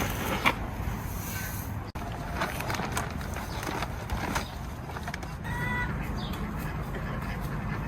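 Farmyard poultry calling now and then over a steady low rumble, with one short call a little past the middle and a few light knocks.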